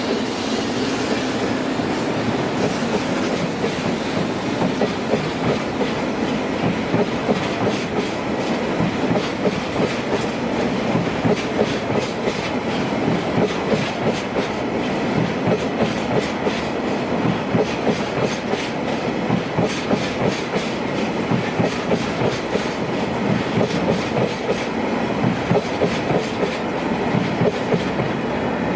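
Freight train wagons rolling past close by, the wheels clicking steadily over the rail joints.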